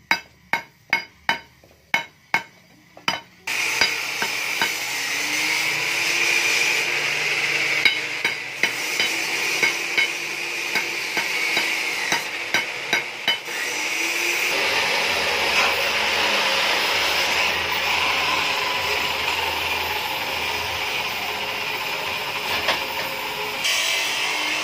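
A hammer strikes a perforated steel exhaust tube about three times a second for the first three seconds or so. Then a gas welding torch hisses steadily on the steel muffler body for the rest, with a few light taps.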